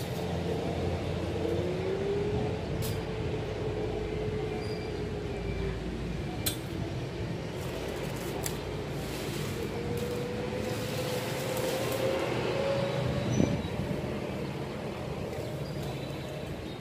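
Steady motor drone whose pitch slowly sags and then rises, with scattered light clicks and a stretch of rasping noise near the middle.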